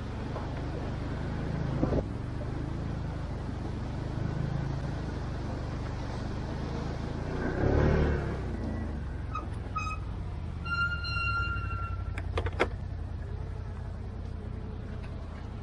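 ATV engine running at low revs, with a brief louder surge of noise about eight seconds in. A short high-pitched tone sounds around eleven seconds in, and a couple of sharp knocks follow about a second later.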